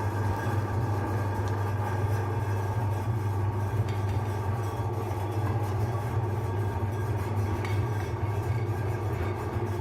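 Electric meat grinder running steadily with a low motor hum.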